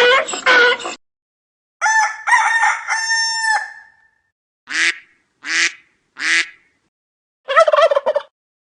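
A string of separate cartoon animal sound effects. The main one is a rooster's cock-a-doodle-doo crow in several pitched segments, about two seconds in. It is followed by three short calls in a row and then a quick quavering call near the end.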